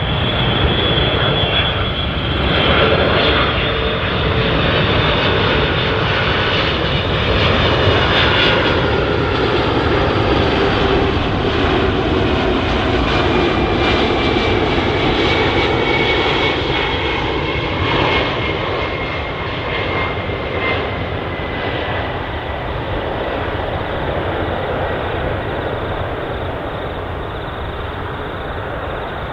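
Boeing 747-400 freighter on final approach, its four jet engines loud and steady with high whines that slowly slide lower in pitch as it passes, the sound easing slightly toward the end.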